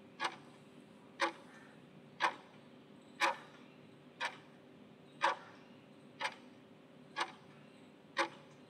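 Quiz countdown timer ticking like a clock, one short tick a second, nine ticks in all, counting down the seconds allowed for an answer.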